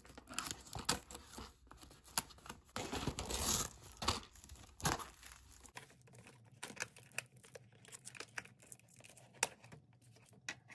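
Clear plastic wrap being torn and peeled off a box of candy canes, crinkling and crackling irregularly. The crackling is dense for the first six seconds or so, then thins to scattered crinkles as the canes are handled.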